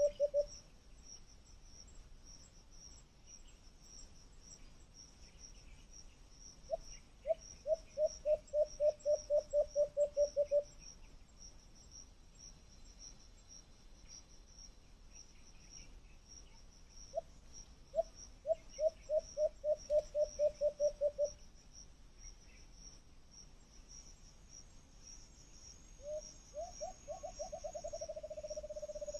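Night insects chirping steadily, with an animal's call of rapid, evenly spaced hollow notes, about seven a second, repeated in bursts of three to four seconds. Near the end a call starts whose notes run together into a slowly falling tone.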